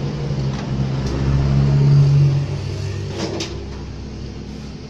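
A motor engine running, growing louder to about two seconds in and then fading away. A few sharp clicks and knocks come from the plastic CRT TV back cover being lifted off and handled.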